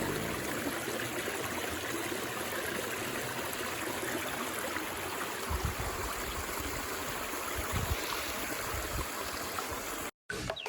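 Steady rush of running water from a stream, with a few low thumps in the middle; it cuts off suddenly near the end.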